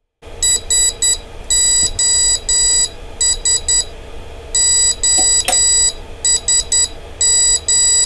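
Grove Beginner Kit's built-in buzzer beeping Morse code, driven by a PWM square wave at 33% duty cycle. Groups of three short beeps alternate with groups of three longer beeps, and there is a single click about five and a half seconds in.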